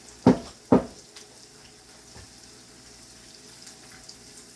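Food frying in a pan with a faint steady sizzle. Two loud, sharp knocks come about half a second apart near the start.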